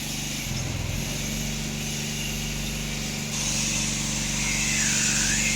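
Electric sheep-shearing clippers running with a steady motor hum, which shifts briefly about half a second in; a higher hiss joins a little past halfway.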